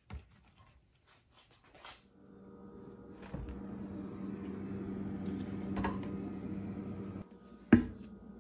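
An open freezer's steady hum, with soft knocks as a plastic tub is handled inside it. The hum cuts off abruptly, and near the end a single loud knock comes as the plastic tub of frozen bananas is set down on a wooden cutting board.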